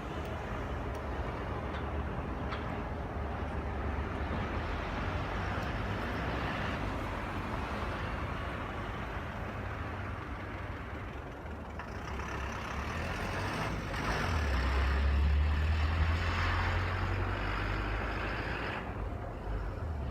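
Steady traffic noise from a nearby expressway, with a louder vehicle passing in the second half. No chime melody is heard.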